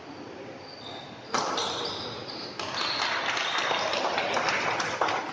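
Badminton doubles rally in a sports hall: a sharp racket hit on the shuttlecock about a second in, with shoe squeaks on the court. Then a longer burst of dense crowd noise from the spectators, full of rapid clicks, as the rally ends.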